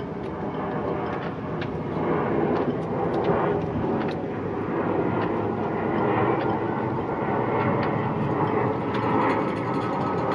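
Jet airliner flying overhead, its engines making a steady, unbroken noise.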